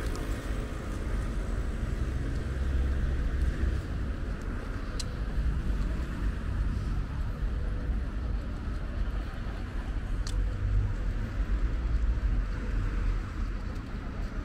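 Street traffic noise: cars on the road, a steady low rumble that swells twice as vehicles pass, with two brief high ticks.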